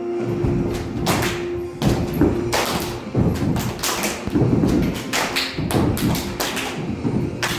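A group of children clapping their hands and thudding on the floor, irregular claps over a steady recorded music track.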